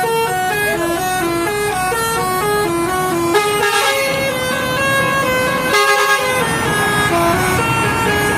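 Bus telolet horn, a multi-trumpet air horn switched electronically, playing a fast tune of short stepped notes, several pitches sounding at once and changing about three to four times a second.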